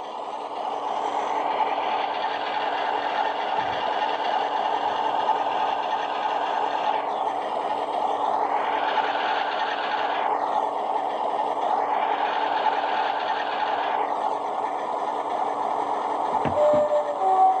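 Recorded Class 47 diesel locomotive engine sound played through a model locomotive's small iPhone-type speaker: a steady engine running, thin in the bass, with its upper tones dropping away and returning a few times.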